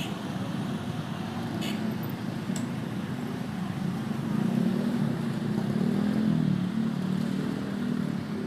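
Steady engine rumble of passing vehicles, swelling louder about halfway through, with two short clicks a little after the start.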